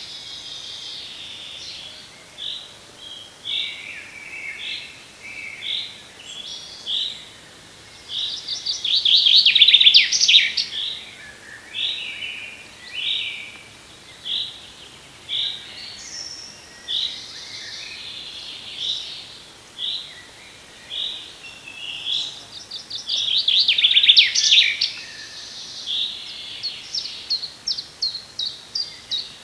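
Wild birds singing: loud, fast trilled songs twice, with short single notes repeated about once a second in between.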